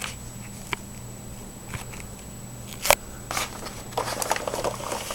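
Hands handling the plastic parts of a Roomba robot vacuum: scattered light clicks, a sharper click about three seconds in, and busier rustling and clicking near the end, over a low steady hum.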